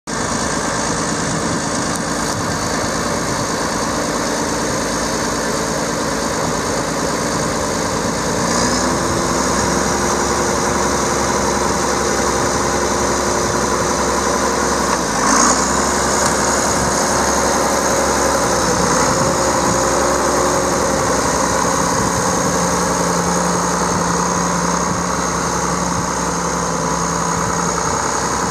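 John Deere 4630's 6.6-litre six-cylinder diesel engine running, picking up speed about eight seconds in with a faint high whine rising along with it. It dips briefly near the middle and eases back a few seconds later.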